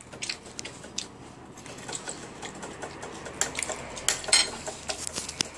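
Irregular light clinks and clicks of cutlery against a ceramic plate, coming thicker and louder in the second half.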